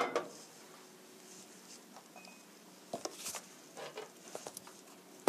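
A frying pan set down on a gas stove's metal burner grate with a clank right at the start, then quiet with a few faint, light handling knocks and rustles about three to four and a half seconds in.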